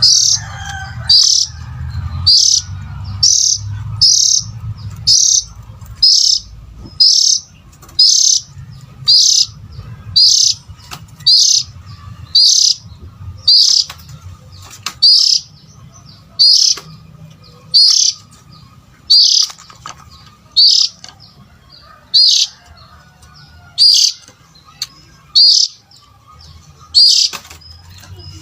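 Oriental magpie-robin (kacer) giving a short, high call repeated about once a second, the kind of call keepers play as a lure (pancingan) for breeding kacer.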